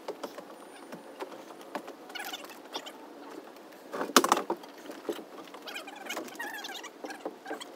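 Faint, scattered knocks and taps of wooden rafters being handled and set in place on a pergola frame, with a louder cluster of knocks about four seconds in.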